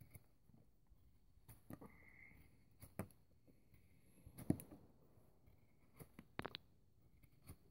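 Quartermaster QSE7 folding knife blade shaving a wooden stick: a handful of short, separate scraping cuts, faint overall, the sharpest about four and a half seconds in.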